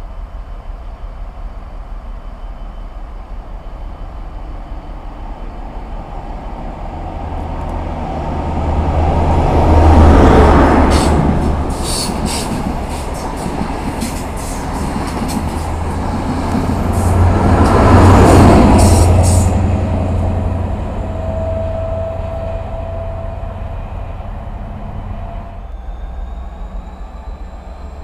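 Network Rail's yellow HST test train, with Class 43 diesel power cars 43013 and 43014, passing close by. The engine drone swells as the leading power car goes by about ten seconds in, the wheels click over the rail joints as the coaches pass, and the drone swells again as the rear power car passes about eight seconds later. A faint steady whine follows near the end.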